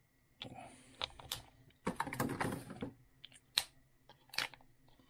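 Light plastic clicks, taps and handling rustle as AAA batteries are fumbled into the battery compartment of Walker's Razor Slim electronic earmuffs, a scatter of short sounds with a longer rustle about two seconds in.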